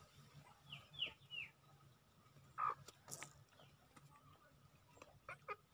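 Domestic ducks giving a few short, scattered calls: three quick high falling peeps about a second in, a louder single call near the middle, and a quick run of short calls near the end.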